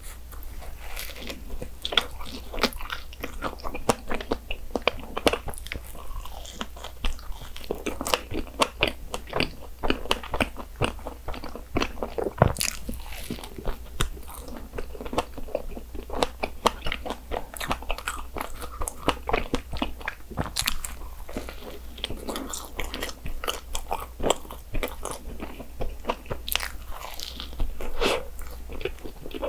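Close-up eating sounds from biting into and chewing a soft bun filled with whipped cream and fresh strawberries. Many small crunchy and wet mouth clicks come unevenly throughout.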